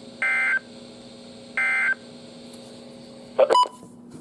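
Emergency Alert System end-of-message data bursts: two short, identical, buzzy digital tone bursts about a second and a half apart, closing the alert. About three and a half seconds in comes a sudden loud click with a brief tone.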